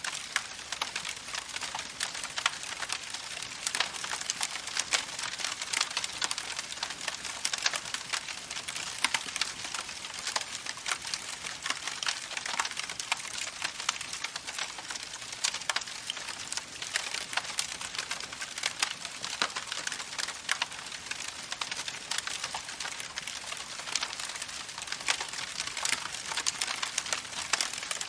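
Campfire crackling with many small, irregular pops over the steady rush of a babbling creek.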